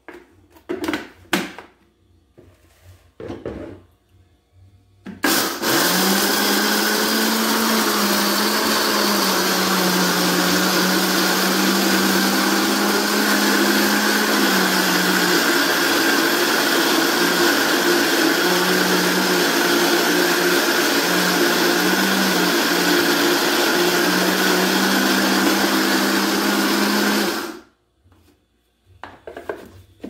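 Countertop blender motor starts abruptly about five seconds in and runs steadily for over twenty seconds, grinding a dry mix of fried annatto seeds and wheat flour, then cuts off. A few knocks of the lid and jar come before it, and clicks follow it.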